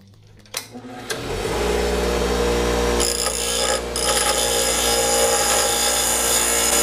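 Electric angle grinder spinning up about a second in with a steady whine. About three seconds in it starts cutting metal and a loud grinding hiss joins the whine, dropping off briefly just before four seconds and then carrying on.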